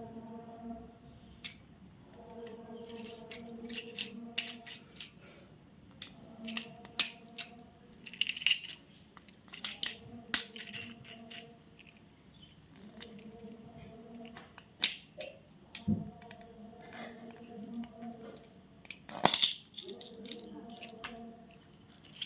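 Candy packaging being handled: irregular sharp clicks and crinkles of wrappers, with small items rattling and knocking together. A steady hum at a few fixed pitches comes and goes underneath in stretches of a second or two.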